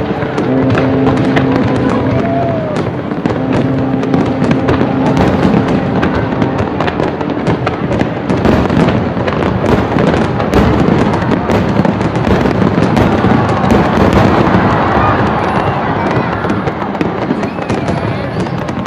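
Aerial fireworks shells bursting in quick succession, a steady stream of bangs that thickens into dense crackling from about eight seconds in.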